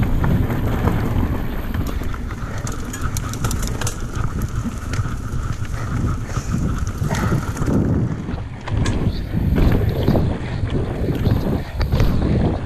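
Wind buffeting the action camera's microphone over the rumble of a Yeti SB150 mountain bike's tyres on a fast dirt trail, with the bike rattling and clattering over rough ground, most busily in the first half.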